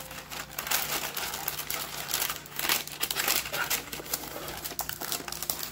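Parchment paper crinkling in irregular bursts as hands press and fold it into a metal baking pan.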